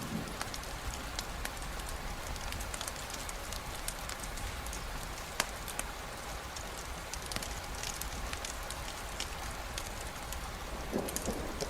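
Steady rain with scattered sharp ticks of drops, the loudest about five and a half seconds in, and a brief low rumble near the end.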